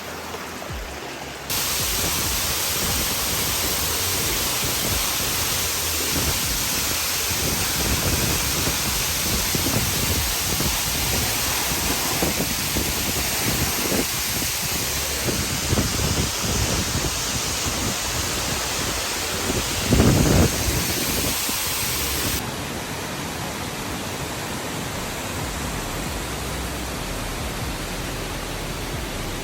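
Waterfall: a steady, dense rush of falling water. It jumps louder about a second and a half in and drops back to a lower rush near the end.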